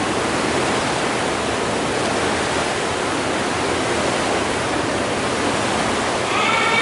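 Steady rush of churning water in an indoor paddling tank, stirred by several paddlers stroking at once; no single stroke stands out.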